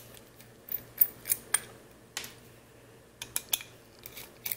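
Small screwdriver clicking and scraping against a screw head and the plastic camera housing while a circuit-board screw is worked loose: irregular sharp clicks, several in quick succession about a second in and again after three seconds.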